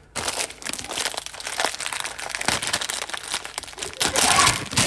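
Plastic packaging crinkling and rustling as it is handled, loudest near the end.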